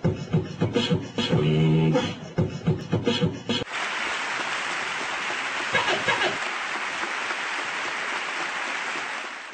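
Beatbox vocal percussion: quick rhythmic mouth clicks and snares with a short hummed tone. About three and a half seconds in it gives way to a steady wash of audience applause, which fades out near the end.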